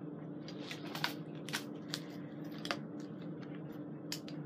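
Airsoft gear being handled: about half a dozen light clicks and rustles, spread unevenly, over a steady low hum.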